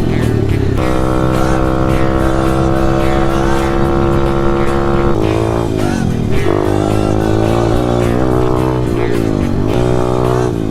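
Motorcycle engine revving: it holds a steady high pitch for about four seconds, then rises and falls in pitch several times, with music playing along.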